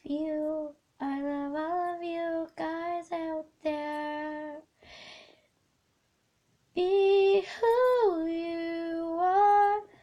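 A girl singing unaccompanied, several slow sung phrases with held notes. There is a short pause of about a second halfway through.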